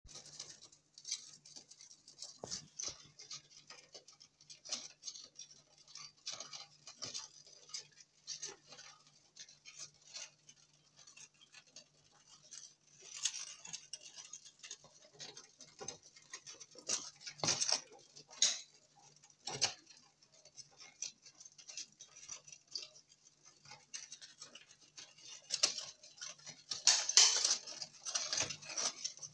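Several longhorn beetles in a clear plastic container making irregular short scratchy clicks and rasps. The clicks come in uneven flurries, loudest near the end.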